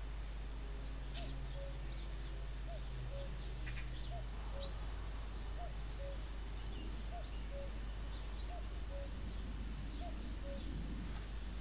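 Scattered faint bird chirps and short calls over a steady background hiss and low hum. A faint low steady drone fades out about four seconds in.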